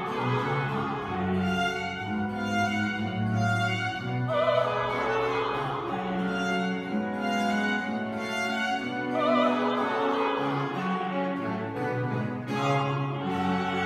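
A woman singing in classical operatic style with a wide vibrato, accompanied by a small string ensemble of violins and a sustained low bass line. The voice swells at about four and a half seconds and again at about nine and a half seconds.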